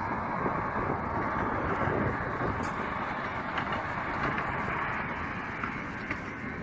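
Passenger train running along the coastal railway far below, heard as a steady rushing rumble that swells slightly about two seconds in.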